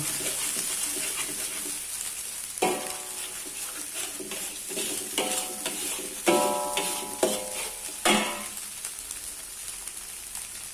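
Spice paste and scrambled egg sizzling in hot oil in a metal wok over medium heat while a metal spatula stirs and scrapes, knocking the wok about five times with a brief metallic ring each time. The stirring stops near the end and the sizzle dies down.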